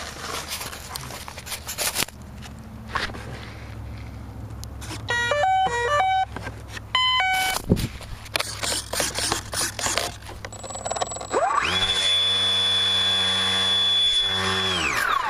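Electric RC airplane's speed controller sounding two short series of stepped beeps through the motor, then the brushless motor whines up, holds a steady pitch for about three seconds and winds down near the end. Knocks and rustling of the foam airframe being handled come in between.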